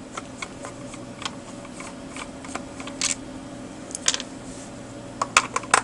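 Irregular small plastic clicks and taps from handling and working open a multimeter's plastic case, with a few sharper clicks about 3 and 4 seconds in and two near the end, over a steady low hum.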